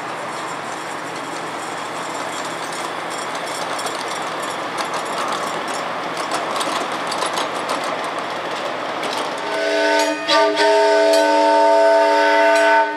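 Ridable miniature trains rolling along the track, wheels clicking over the rail joints. About three-quarters of the way in, a steam locomotive's chime whistle sounds a chord of several notes: a short blast, then a long one.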